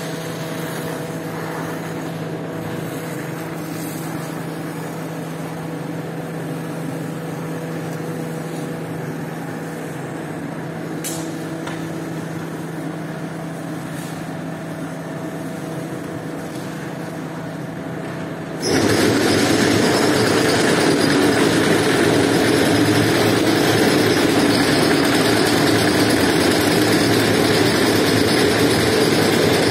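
Machinery running with a steady hum and a few held tones; about two-thirds of the way in, a louder, rougher machine noise starts abruptly and continues.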